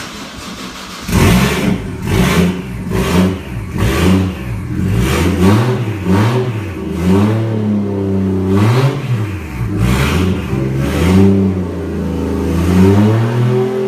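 1JZ inline-six engine in a Nissan S13 240SX starting up about a second in and then being revved repeatedly, the revs rising and falling over and over.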